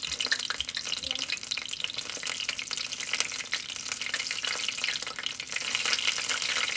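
Hot oil sizzling steadily with a continuous fine crackle as wonton-wrapped fried pickles (frickles) cook in it.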